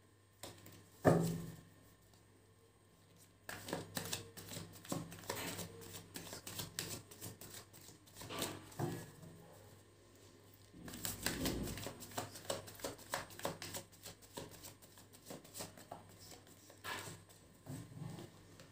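A deck of tarot cards being shuffled by hand: runs of quick papery clicks and card slaps in two long stretches, with a single louder knock about a second in.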